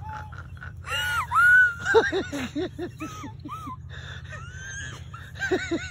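A child's high-pitched wordless squeals and gasps, with quick runs of short falling yelps about two seconds in and again near the end.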